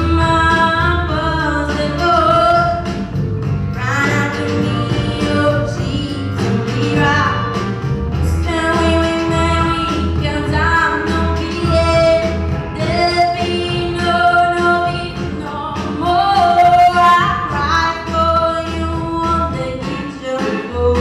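A song: voices singing a melody over instrumental accompaniment with a steady beat.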